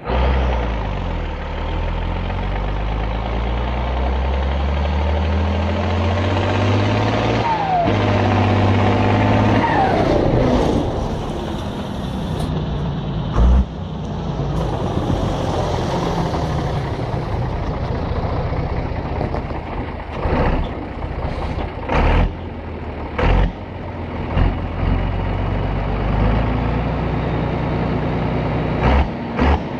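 Turbocharged MWM diesel engine of an old Fendt tractor pulling hard, its note climbing, dropping at a gear change about seven seconds in and climbing again, then easing off about ten seconds in. After that the engine keeps running close by with several short, loud bursts.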